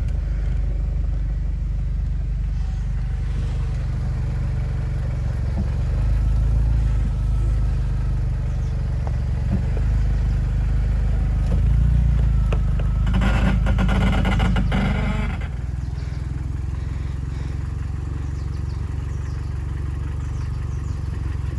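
Jeep Wrangler engine running under load at crawling speed as it is driven off a rock, getting louder about six seconds in. A couple of seconds of rattling, scraping clatter come around thirteen seconds in, and then the engine drops back to a quieter idle.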